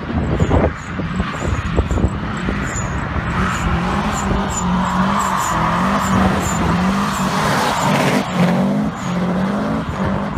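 Subaru Impreza WRX STI's turbocharged flat-four revving hard while the car drifts, the revs rising and falling over and over, with tyre squeal swelling through the slide.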